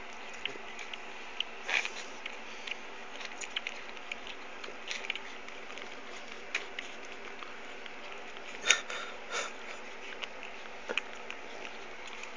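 Newborn French bulldog puppies suckling at their mother: irregular small wet clicks and smacks over a steady hiss, with a sharper knock a little past two-thirds of the way through.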